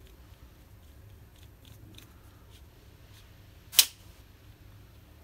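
A single sharp click about three-quarters of the way through as a GM Vectra Kiekert electric door lock, pressed firmly by hand, snaps into its locked position: the click is the sign that the lock mechanism is assembled correctly. Faint small ticks of the plastic housing being handled come before it.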